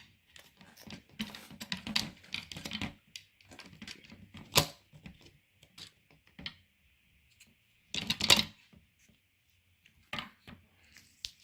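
Small plastic parts of a squishy human anatomy model being handled and pressed into place: irregular clicks and rattles, with a single sharp click about four and a half seconds in and a dense burst of clicking around eight seconds.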